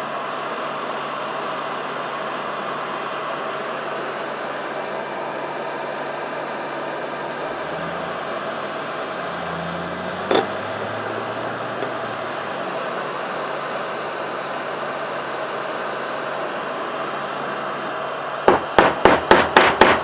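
Heat gun blowing a steady hiss of hot air onto a small aluminium nitro RC engine case, heating the case so it expands off the bearing. One sharp knock about halfway, then near the end about seven quick knocks as the hot case is rapped against a hard surface to knock the bearing loose.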